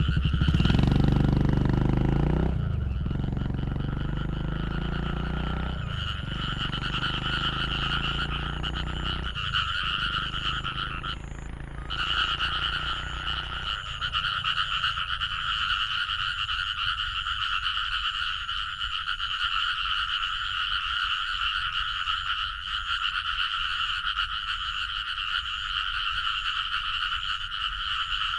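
A dense chorus of many frogs croaking together, a continuous high-pitched din that briefly drops out about eleven seconds in. Underneath, a low droning hum shifts pitch a few times and stops about fourteen seconds in.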